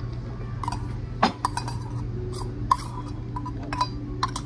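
Dishes and cutlery clinking: a series of light clinks and knocks, several ringing briefly, over a steady low hum.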